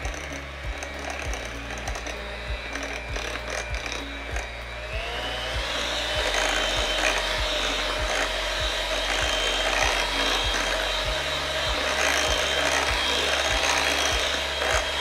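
Electric hand mixer running, its beaters churning mashed bananas into a thick batter in a glass bowl. The motor's steady whine rises in pitch about five seconds in and then holds.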